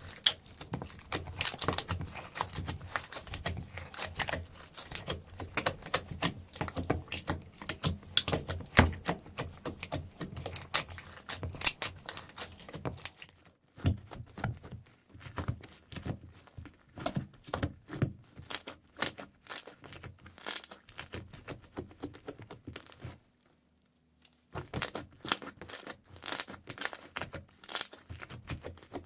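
Slime being squished, stretched and pressed by hand, making a dense run of crackling, popping clicks. The clicking thins out about halfway, stops for a moment, then picks up again densely near the end.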